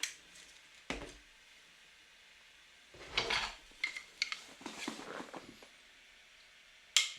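Kitchen utensils clinking and knocking together: a handful of separate strikes, some ringing briefly, in a few clusters.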